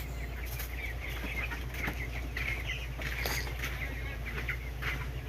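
Chickens clucking in many short, repeated calls over a steady low hum.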